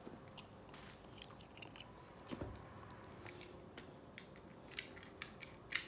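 Faint handling noises: scattered light clicks and rustles from a shrink-wrapped iPhone box being turned over in the hands.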